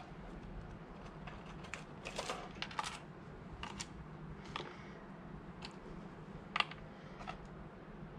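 Scattered light clicks and rattles of wires and small parts being handled at a workbench, irregular and about eight in all, over a faint steady low hum.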